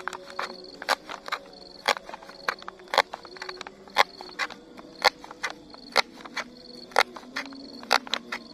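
Kitchen knife chopping green onion on a plastic cutting board: sharp taps, about two a second. Behind it, a faint insect calls in short, repeated high notes.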